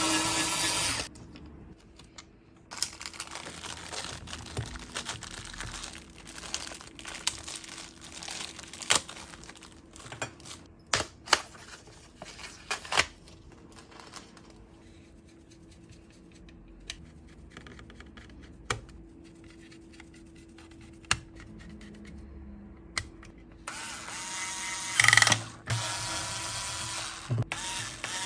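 Hand tools and small parts clicking and tapping during computer disassembly, with a few sharp knocks. There is a louder stretch of rasping, ratchet-like mechanical noise at the start and another near the end.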